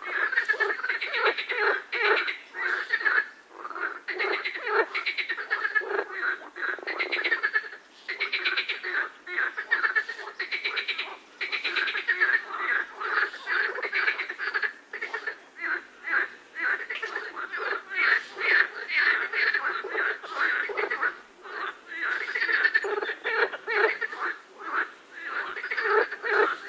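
A chorus of frogs calling: many overlapping, rapidly pulsed croaks that come in bouts with short lulls between them.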